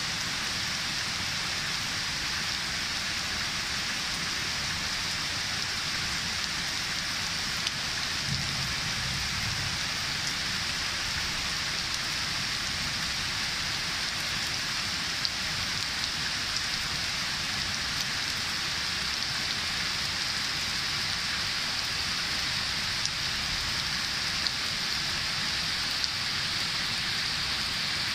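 Heavy rain falling steadily, a dense even hiss of drops with a few single louder drop hits now and then.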